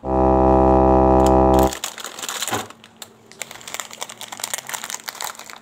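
A loud, steady buzzing tone, held for under two seconds and then cut off, followed by the irregular crackling and crinkling of a plastic biscuit packet being handled.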